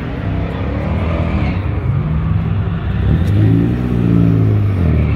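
Car engine revving in repeated swells, the pitch rising and falling. It is loudest about three to four seconds in, then drops away just before the end.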